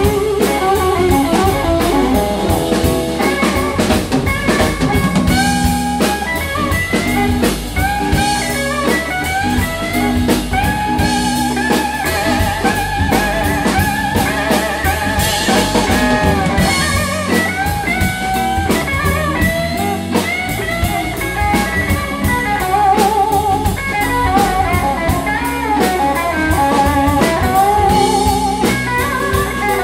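Live blues band playing an instrumental passage: electric guitars and a drum kit, with a lead guitar line of bent, wavering notes over the beat.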